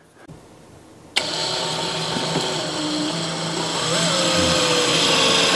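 Cordless drill/driver driving a long screw through the particleboard sides of two cabinets to join them, with no pilot hole drilled. The motor starts suddenly about a second in and runs on steadily, its pitch sinking slowly.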